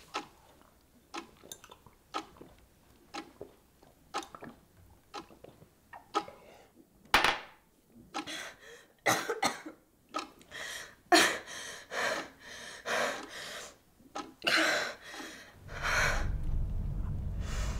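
A woman coughing and gagging in a run of harsh bursts while swallowing pills with water, after a few seconds of faint, spaced clicks. A low steady drone comes in near the end.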